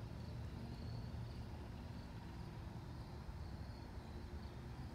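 Quiet outdoor ambience: a steady low rumble with faint high chirps that come and go.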